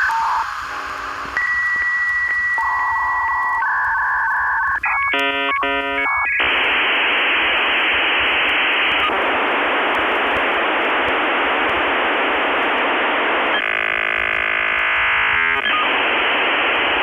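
Dial-up modem connection handshake heard down a telephone line: a sequence of steady tones that change pitch, a rapid warbling pattern about five seconds in, then a long stretch of harsh hissing static.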